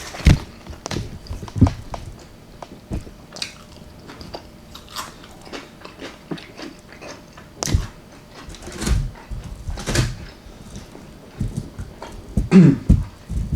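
Close-miked eating sounds: chewing and biting into baked chicken parmesan, with irregular wet clicks and smacks of the mouth.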